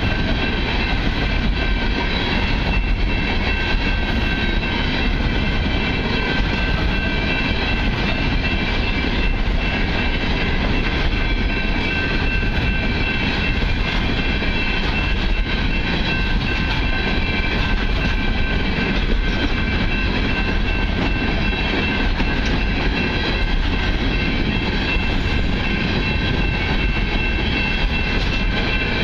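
Freight train of open-top hopper cars rolling steadily past: a continuous rumble of steel wheels on rail, with a few steady high ringing tones over it.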